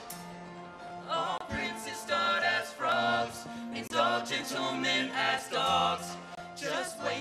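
A group of male voices sings a show tune in unison over a steady instrumental accompaniment. The voices come in about a second in, after a short stretch of accompaniment alone.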